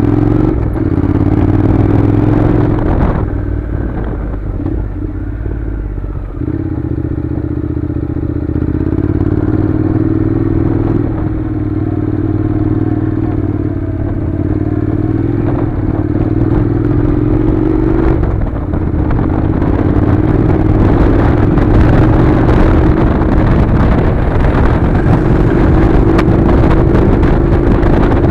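Honda NC700's parallel-twin engine running under way on a gravel track. The engine note dips briefly about four times and then climbs steadily through the last third, with a growing rush of noise.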